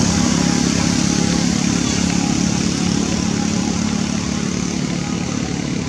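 A motorbike engine running steadily with an even hum, slowly getting quieter.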